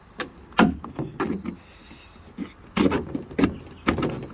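Sharp plastic clicks and knocks, several in a row, from the last push-pin clips being pried out of an Infiniti sedan's trunk-lid trim panel and the panel coming loose.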